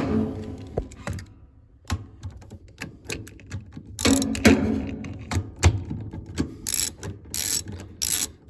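Ratchet with an 11 mm socket on extensions clicking and clanking down inside a washing machine agitator as it is worked onto the agitator bolt: irregular metal knocks and ratchet clicks, with busier clattering about halfway through and again near the end.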